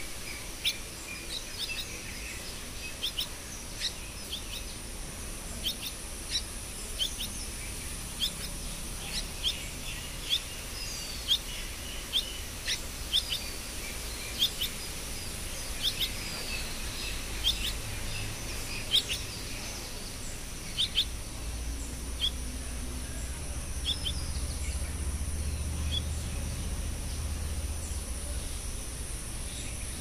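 Common myna chicks calling with short, sharp chirps, one or two a second, over a steady high hiss. The chirps thin out near the end.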